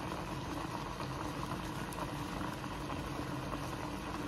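Rice and agar-agar in chicken broth boiling in a stainless steel pot on a stove, a steady bubbling.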